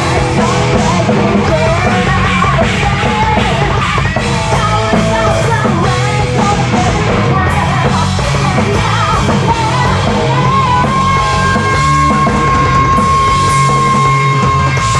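Hard rock band playing live at full volume, amplified guitar and drums with a shouted, sung lead vocal. About ten seconds in, a single high note is held steadily.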